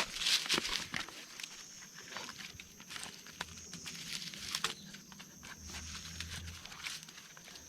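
Irregular rustling, clicks and knocks of someone moving about and handling camping gear while pitching a tent and hammock; busiest in the first second. A faint steady high-pitched hum runs underneath.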